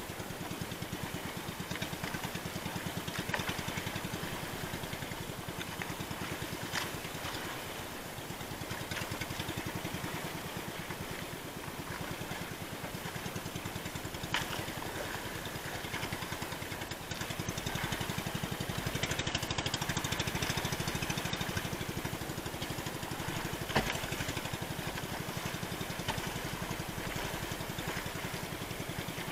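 Small outrigger fishing boat's engine running steadily with a fast, even pulse, getting somewhat louder about two-thirds of the way through. A few light knocks sound over it.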